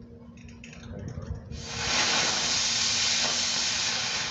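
A few quick clicks, then a small spinner firework catches about a second and a half in and sprays with a loud, steady hiss.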